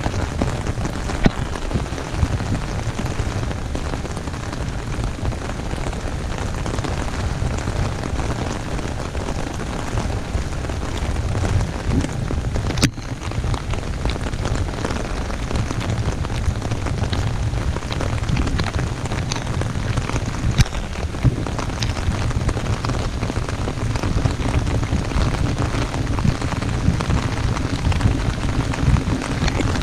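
Heavy, steady rain falling on an umbrella held overhead: a dense, even hiss with many separate drops ticking on the fabric, and a split-second gap about halfway through.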